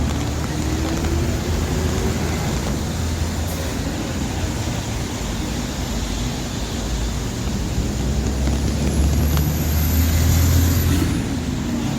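City street traffic: cars and buses running past in a steady wash of engine and road noise, with one vehicle's engine growing louder about nine to eleven seconds in.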